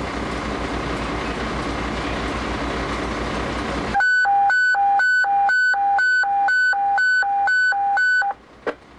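Steady rushing noise, then about a second in... no: after about four seconds of steady rushing noise, a two-tone hi-lo alert tone comes over the fire radio, switching between a high and a low pitch about twice a second for some four seconds before cutting off. It is the dispatcher's alert tone sounded for the evacuation order from the main fire building.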